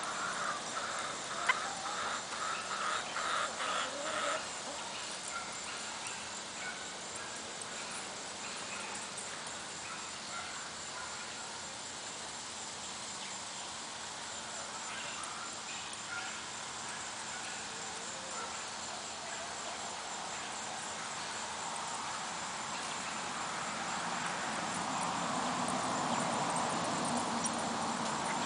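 Backyard ambience: a quick run of short animal calls in the first few seconds over a steady high-pitched insect trill, with a broad hiss swelling louder near the end.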